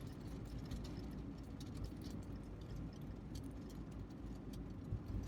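Steady low rumble of a Lada Niva's engine heard inside the cabin, with scattered faint clicks.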